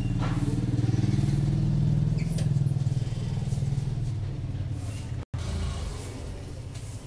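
Low rumble of a motor vehicle engine running, swelling over the first couple of seconds and then easing off, with a brief total dropout about five seconds in.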